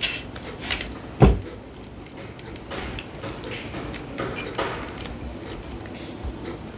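Scattered light clicks and clinks of a plate and utensils, with one heavy thump about a second in.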